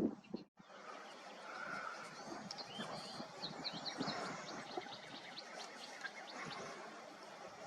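Eastern kingbird calling: a rapid run of short, high, sharp notes, thickest from about two to seven seconds in, over a steady background hiss.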